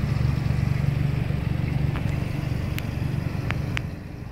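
A car engine idling: a steady low rumble, with a few faint sharp clicks.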